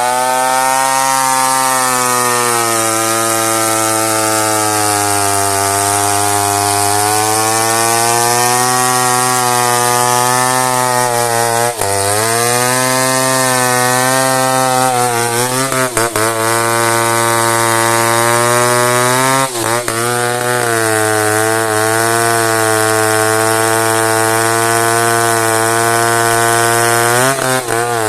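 Two-stroke chainsaw running flat out while cutting into a merbau hardwood tree, its engine pitch sagging and recovering several times as the chain works through the dense wood, with a few brief drops near the middle and near the end.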